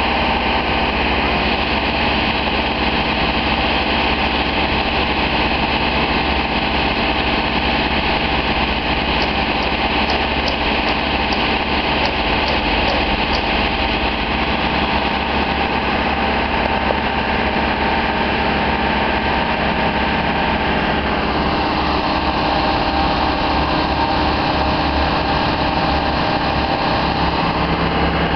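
Engine of a large telescopic boom lift running steadily while the machine is operated, its pitch shifting slightly about three-quarters of the way through.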